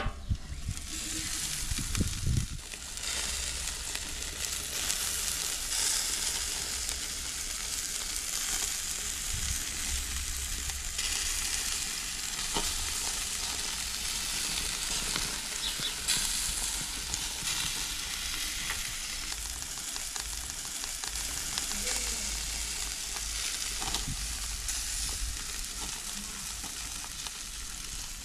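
Chicken drumsticks and sausages sizzling steadily on the grate of a gas barbecue, with occasional small pops of fat.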